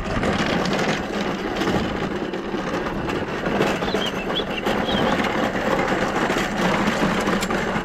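A vehicle running steadily while driving, with engine hum and road noise.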